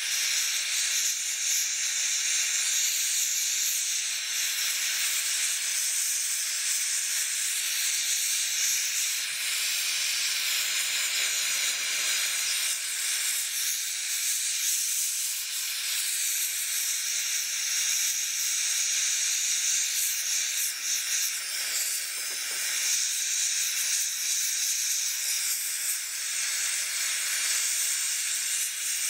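MAPP gas and oxygen torch burning with a steady hiss, its flame playing on scrap sterling silver in a crucible as the metal melts.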